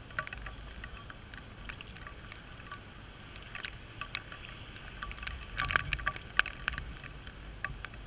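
Rain: irregular sharp ticks of raindrops striking the GoPro's housing over a low wind rumble, with a louder cluster of ticks about six seconds in.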